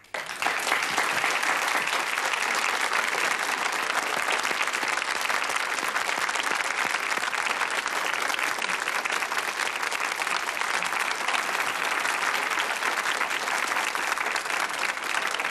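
Studio audience applauding steadily in welcome, a dense, even clapping that starts at once and holds at the same level throughout.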